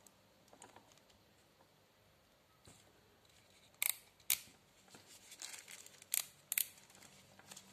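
Clicks and light rustling from an Ingco 500W corded drill's plastic body and controls being handled: four sharp clicks in two pairs about two seconds apart, the first pair about four seconds in.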